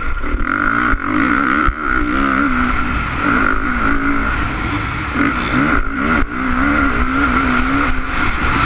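Honda CRF450 four-stroke single-cylinder motocross engine revving up and down under racing throttle, with several brief throttle chops, heard from the rider's helmet camera.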